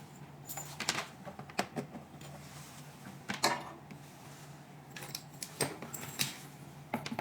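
Scattered clicks and knocks of hard plastic and metal parts being handled as an RF handpiece's cable plug is fitted into its socket on the machine, over a faint steady low hum.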